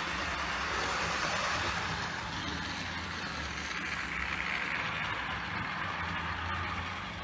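HO scale AHM Rivarossi Bowker steam locomotive's cab-mounted motor running, with its wheels and the passenger cars' wheels rolling on brass track. The noise swells about four seconds in as the train passes close by, over a steady low hum.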